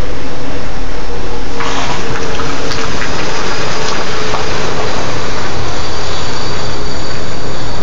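Infiniti Q45's V8 engine running hard as the car pulls away across wet gravel, very loud throughout. About one and a half seconds in, a louder rushing noise sets in as the car gets moving.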